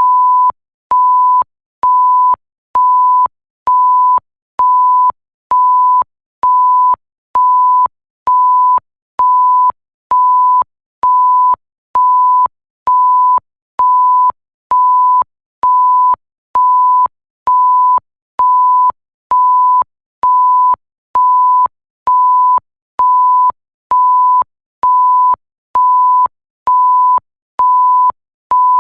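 Censor-style bleep: a pure tone near 1 kHz, repeated evenly a little faster than once a second, each beep about two thirds of a second long with short silent gaps and a faint click as each one starts and stops.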